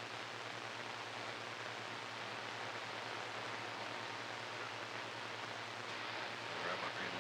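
Steady hiss of CB radio static on an open channel between transmissions, over a low steady hum. A faint, weak voice starts to come through the noise near the end.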